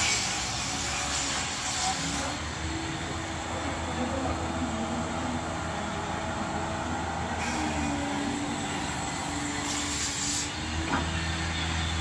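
Steady low hum and hiss of machinery running, with the hiss swelling twice.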